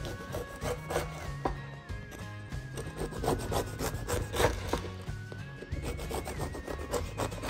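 A knife sawing back and forth through the crust of a whole-grain loaf on a wooden cutting board, in a run of repeated strokes.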